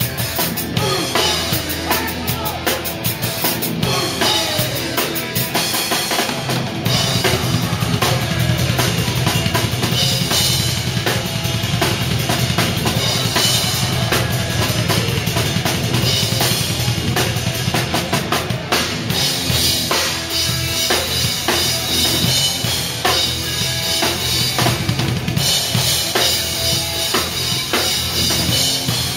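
Live drum kit played hard with the band, close to the microphone: kick drum, snare and cymbals in a fast, driving beat. The low kick-drum hits thicken into a dense, rapid run about seven seconds in.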